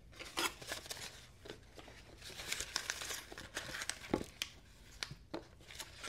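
Packing material crinkling and rustling as items are pulled from an opened shipping box, with irregular crackles and a few sharper taps, the clearest about four seconds in.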